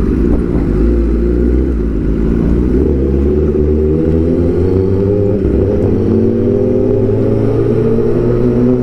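Sport-bike engine running under way, heard from the rider's seat. It holds a steady pitch at first, then climbs slowly as the bike gathers speed.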